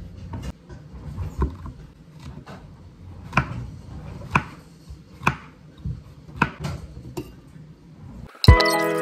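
Kitchen knife slicing brown mushrooms on a wooden cutting board, the blade knocking sharply on the board roughly once a second. Music starts near the end.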